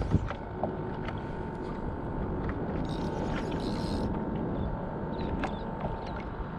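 Steady wind and water noise around a paddleboard on open sea, with a few faint clicks.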